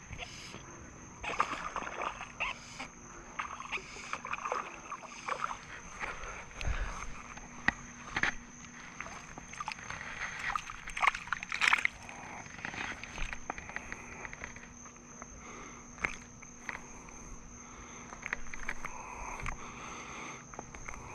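Irregular rustling, clicks and small splashes as a small bass is played in, landed by hand and unhooked at the water's edge, with footsteps on grass. A steady high-pitched tone runs underneath.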